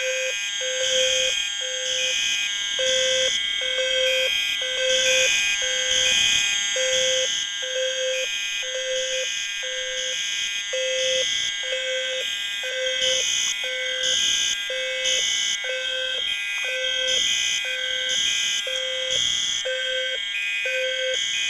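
About a dozen fire alarm notification appliances sound at once: System Sensor SpectrAlert Advance and L-Series low-frequency sounders, Wheelock AS and NS horns, an EST Genesis, a Commander 3, a GX90 and an Integrity. A low horn tone pulses out of step at roughly once or twice a second under a din of steady and pulsing high-pitched horn tones. It is painfully loud.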